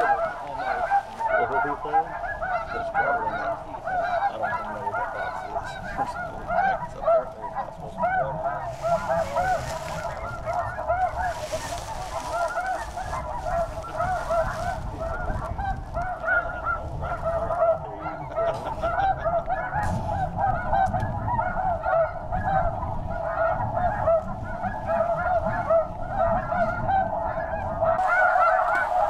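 Dense, continuous chorus of snow goose calls: many short, high honks overlapping without a break.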